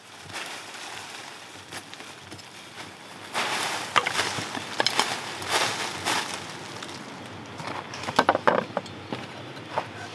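A blade hacking and scraping into dry, leaf-littered soil in a few rough bursts, with leaves crackling. Near the end come several sharp knocks.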